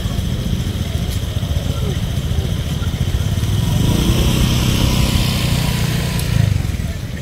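A motor vehicle's engine passing by, growing louder from about three seconds in and fading away near the end.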